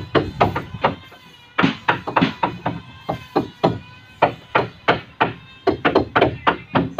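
Tool blows on timber during wooden boat building, striking steadily about three times a second with a short pause about a second in.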